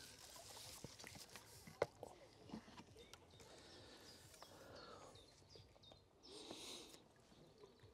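Near silence: faint outdoor ambience with a few soft clicks and rustles, one sharper click about two seconds in and a brief soft rush of noise near the end.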